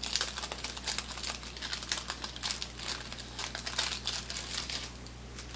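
Wrapper of a 1988 Topps Big Baseball Cards pack crinkling and crackling as it is torn and peeled open by hand, a dense run of sharp crackles that stops about five seconds in.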